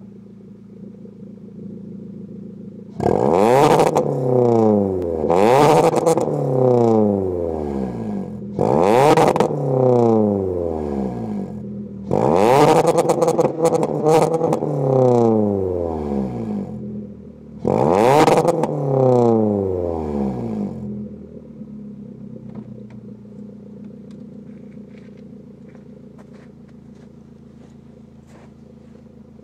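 Kia Forte Koup four-cylinder breathing through an ARK cat-back exhaust with the catalytic converter deleted, idling and then revved five times. Each rev climbs sharply and sags back down to idle. It settles into a steady idle about two thirds of the way through.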